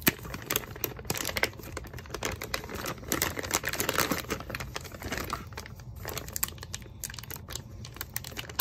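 Clear plastic bag crinkling and crackling in the hands as it is worked open, a taped-up bag being pulled off a small boxed device. Irregular sharp clicks and rustles run on with no steady rhythm.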